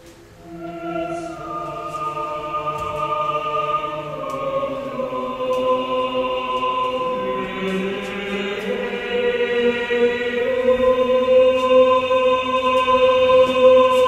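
Slow accompanying music of long, overlapping held tones, entering about half a second in and swelling gradually louder.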